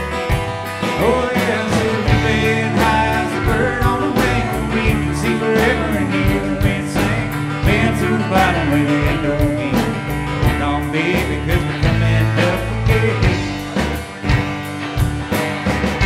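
Live band music: acoustic guitar, electric guitar, upright double bass and drums playing a country-rock song with a steady beat.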